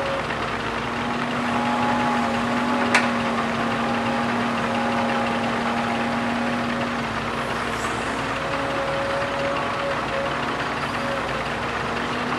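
Diesel engines of a Kobelco hydraulic excavator and a six-wheel dump truck running steadily under work, with a few held tones and a single sharp clank about three seconds in.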